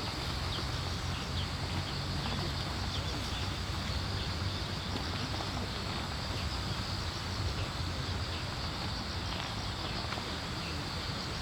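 Insects chirping steadily in a continuous high chorus, over a low steady rumble.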